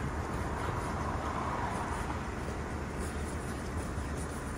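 Car engine idling steadily, warming up on a cold morning, with faint rubbing of a fingertip across frosted window glass.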